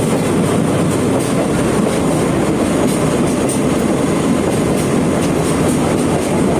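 Sagano Romantic Train cars running along the track: a steady, loud noise of wheels on rails, with faint light clicks scattered through it.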